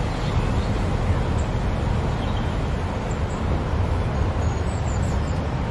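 Steady low rumble and hiss of outdoor background noise, with a few faint, short, high bird chirps.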